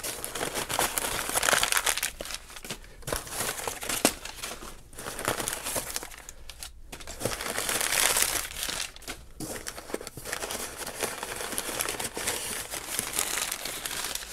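Crumpled newspaper packing crinkling and rustling as hands dig it out of a shipping box, in uneven bursts with brief pauses.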